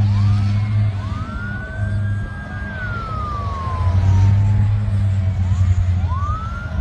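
Emergency vehicle sirens wailing. One rises about a second in, holds, then falls slowly over a couple of seconds, and another begins rising near the end. A steady low engine rumble runs underneath.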